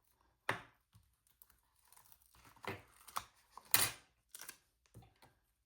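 Handling of a sticker sheet and planner pages: a few irregular light taps and rustles, the loudest a little under four seconds in.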